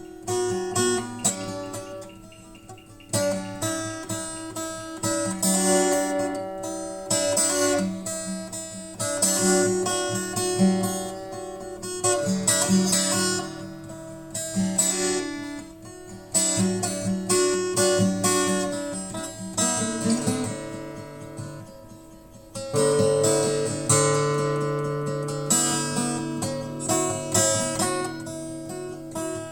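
Acoustic guitar music: strummed and plucked chords.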